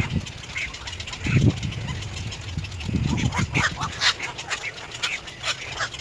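Black-crowned night herons calling: low, hoarse, duck-like croaks about a second and a half in and again around three seconds in, over many short, high chirps.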